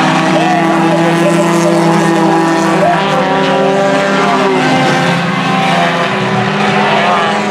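Several four-cylinder race cars running at speed together, their engines making overlapping steady drones that shift in pitch now and then as they go through the turns.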